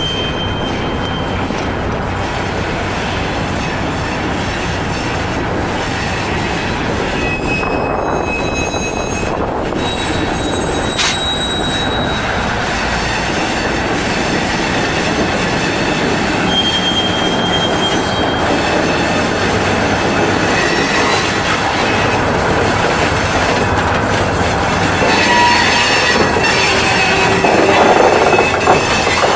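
Old GE diesel switcher locomotive creeping along with a loaded flatcar, its engine a steady low rumble. Short high squeals come from the wheels on the rails. It grows a little louder as the locomotive and then the car come past, loudest near the end.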